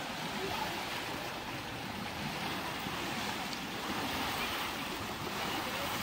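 Steady rush of a muddy river's current, churning around young elephants wading through it.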